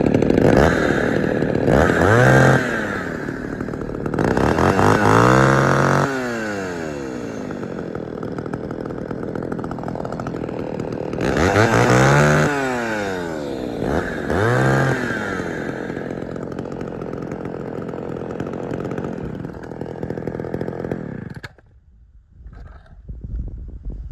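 Homelite Super XL two-stroke chainsaw idling, with about four quick throttle blips that rise and fall in pitch. The engine is shut off about 21 seconds in.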